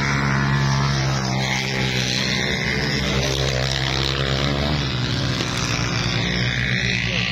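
Dirt bike engine running hard as the bike races past and away over sand, its pitch shifting partway through.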